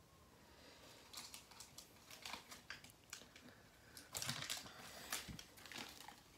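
Faint rustling and light clicks of baseball cards and a torn card-pack wrapper being handled, with a louder run of crinkles and taps about four seconds in.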